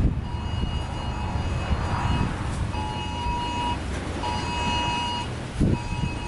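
A phone sounding the Wireless Emergency Alert attention signal: a steady two-pitch beep, one long tone then two short ones, with the long tone starting again near the end. Wind rumble runs underneath, with a low thump near the end.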